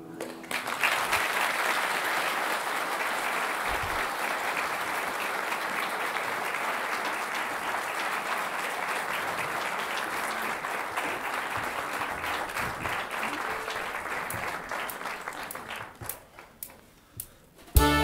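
A concert audience applauding steadily after a song. The applause dies away near the end into a few last scattered claps, and music starts right at the very end.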